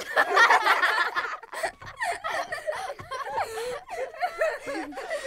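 Wordless human voice sounds in short broken bursts with wavering, rising and falling pitch, like laughing or snickering.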